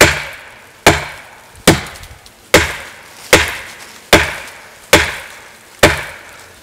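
Fiskars 28-inch chopping axe's composite handle striking the bare trunk of a dead sugar maple in deliberate overstrikes: eight hard, woody knocks at an even pace of about one every 0.8 seconds, each ringing briefly before the next.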